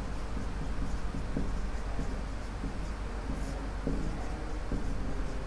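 Marker pen writing on a whiteboard: irregular scratching strokes over a steady low hum.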